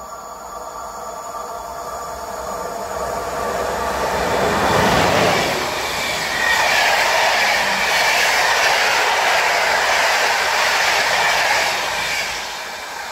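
Passenger express hauled by an EP09 electric locomotive passing through a station. The noise builds as it approaches, is loudest as the locomotive goes by about five seconds in, stays loud while the carriages go past, and falls away near the end as the last carriage clears.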